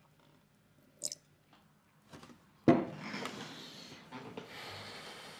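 A light glassy clink about a second in, then a wine bottle set down with a sudden thud on a wooden dinner table near the middle, followed by a few seconds of soft rustling that fades.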